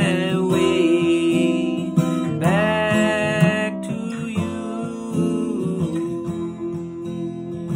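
Strummed acoustic guitar with a man singing over it; his voice slides up into a long held note twice, at the start and about two and a half seconds in.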